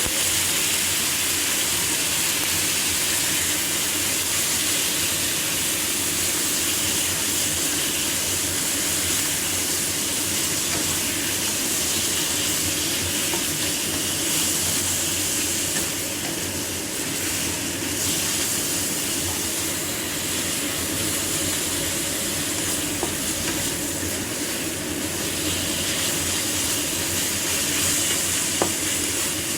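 Food frying in a hot pan with a steady sizzle while it is stirred, with one brief click near the end.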